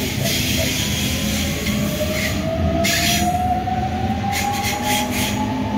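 Sydney Trains Waratah (A set) double-deck electric train pulling away and gathering speed, its traction motors whining in one tone that climbs steadily in pitch over the rumble of the cars. Several short bursts of hiss come over it partway through.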